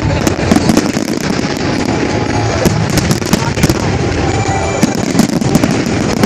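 A fireworks display at full barrage: many shells bursting in quick succession, sharp bangs over a continuous crackle.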